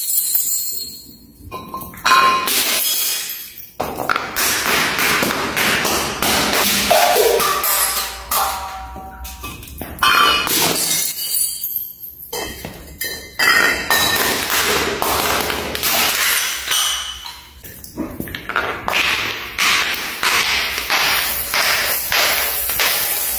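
Things tumbling down marble stairs one drop after another: glass bottles striking the steps and shattering, and small glass beads and marbles bouncing with clinks and pings, in rapid runs of impacts with short pauses between them.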